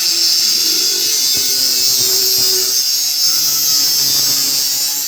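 A power cutting tool with an abrasive cut-off wheel cutting through steel tubing. It runs continuously, making a steady high-pitched hiss.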